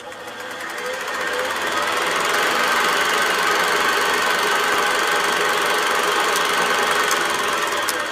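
Film projector running with a rapid, steady mechanical clatter, fading in over the first two seconds.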